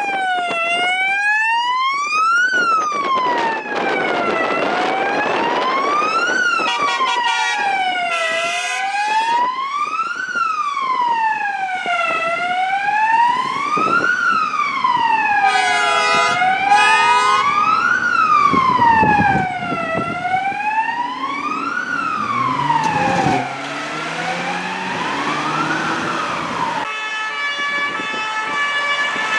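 Fire engine's siren wailing, rising and falling about every four seconds, cut with short air-horn blasts twice. The truck's engine note climbs in steps near the end, then the sweeping stops and a steady air-horn tone is held.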